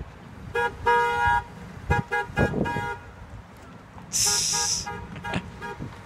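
Vehicle horn honked in a rhythmic run of short toots, with one longer blast about a second in. A loud high hiss lasts about a second, starting about four seconds in, with more quick toots under it.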